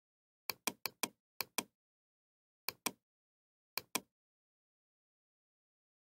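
Computer mouse clicking: ten sharp clicks in quick pairs, five pairs in all, with dead silence between them.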